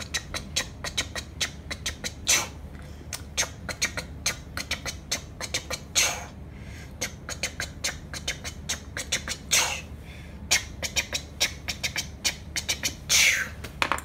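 Brown oil pastel scratching on drawing paper in quick, irregular strokes as circles are outlined, with a few short squeaks that fall in pitch.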